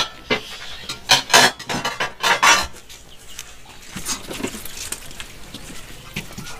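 Metal pots, plates and spoons clinking and scraping as food is dished out: several loud clatters in the first two and a half seconds, then lighter clicks.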